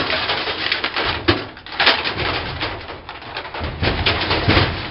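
Tearing and banging as parts are ripped out of a vending machine, with several sharp knocks.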